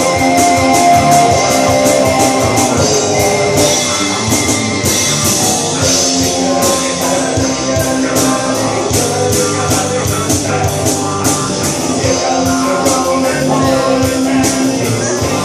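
Live rock band playing in a bar room: electric guitars, electric bass and drum kit with a steady beat of cymbal strokes. A harmonica holds a high note over the band for the first few seconds, and a man's voice sings later on.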